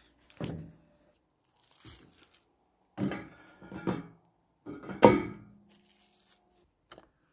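Metal filter parts being handled and set down on a machine's steel deck, with some crinkling of plastic wrapping: a few separate knocks. The loudest, about five seconds in, is a clunk that rings briefly like metal.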